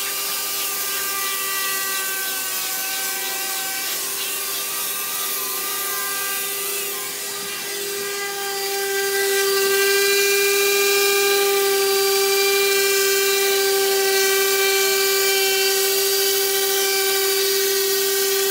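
Handheld electric disc sander running against a boat's hull, a steady whine that wavers slightly as it is pressed and moved. It gets louder about nine seconds in.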